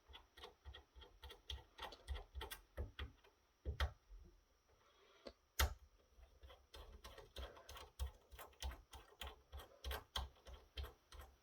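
Flathead screwdriver unscrewing small screws from a metal electronics chassis: a faint, irregular run of small metallic clicks and ticks, with a short pause near the middle followed by one louder click.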